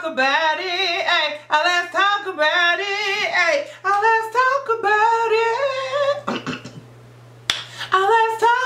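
A woman singing a cappella in long, sliding phrases, trailing off about six seconds in. A sharp click comes about seven and a half seconds in, and the singing resumes near the end. A steady low hum runs underneath.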